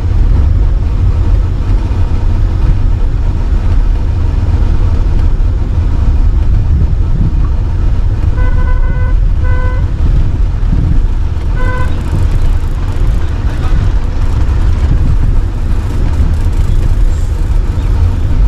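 Steady low rumble inside an MG SUV's cabin while it is driven along. A car horn sounds a few short toots about eight to ten seconds in, then one more brief toot near twelve seconds.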